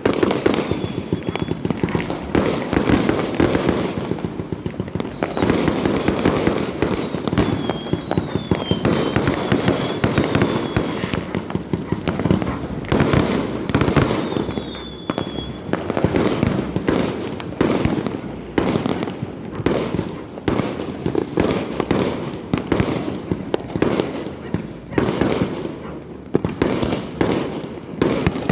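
Fireworks going off without pause: a dense stream of overlapping bangs, pops and crackle. A thin, wavering high whistle rises and falls several times in the first half.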